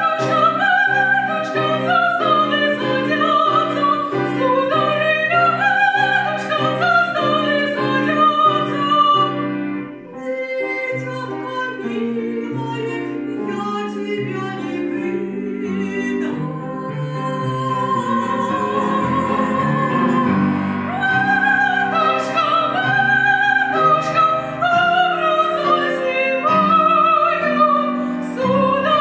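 Two women's voices singing a Russian folk song as a duet in trained, classical style, accompanied by a grand piano. There is a short break in the singing about ten seconds in, after which it is softer for a while before building again.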